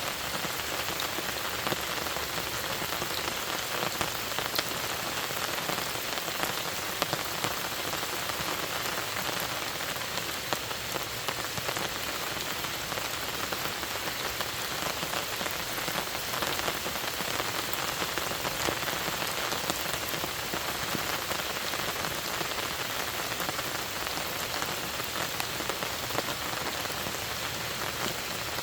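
Steady rain falling, an even hiss with many close, distinct drop ticks throughout.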